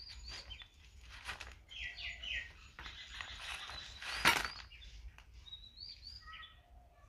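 Small birds chirping intermittently in the background, with one sharp knock a little over four seconds in.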